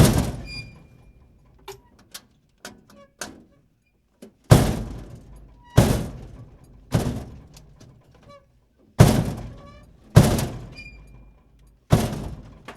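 Dumpster door slammed shut again and again: seven loud bangs, each ringing on briefly before dying away, with a few lighter knocks between the first two.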